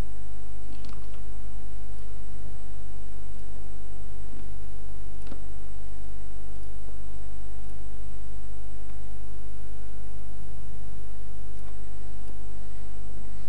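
Steady electrical mains hum and buzz, made up of many fixed tones, with a few faint clicks about a second in and again around five seconds.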